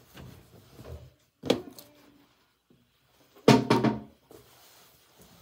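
Knocks and thumps: one sharp knock about one and a half seconds in, then a quick run of several louder knocks about two seconds later.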